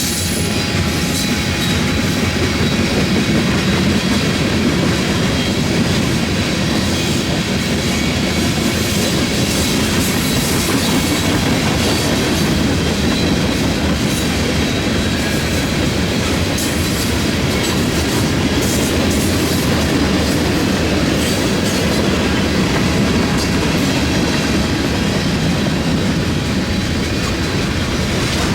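Freight train cars rolling past at steady speed: a continuous loud noise of steel wheels on rail, with scattered light clicks from the wheels.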